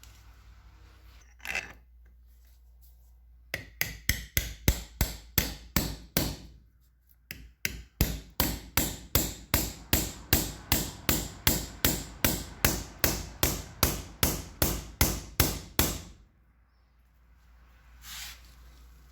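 Hammer blows on a submersible pump motor's upper end cover, driving it onto the motor housing during reassembly: a single knock, a quick run of strikes, then a long steady series at about three blows a second that stops a few seconds before the end.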